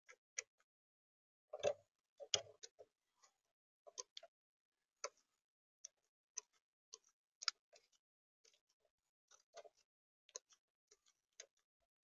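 Eurasian magpie pecking seed from a plastic feeder tray: irregular sharp taps of its beak, about two or three a second, with a couple of heavier knocks about two seconds in.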